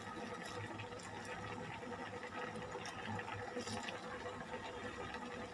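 A pot of meat stew bubbling on a gas burner: steady boiling with a few faint small pops.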